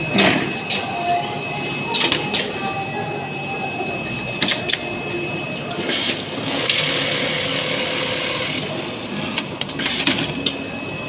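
Filleting machine running with a steady high whine, scattered clicks and knocks, and a stretch of hissing about seven seconds in.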